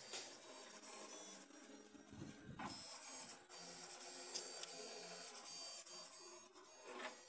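CraftBot FDM 3D printer printing: its stepper motors whir and buzz in shifting tones as the print head and bed move.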